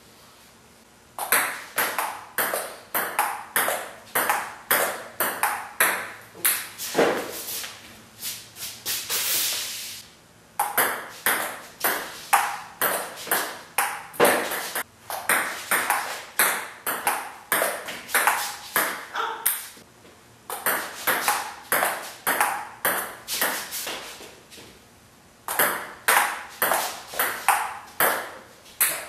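Table tennis rallies: the celluloid ball clicking back and forth off the paddles and the table top in quick, even strokes. It starts about a second in, and several rallies follow one another with short pauses between them.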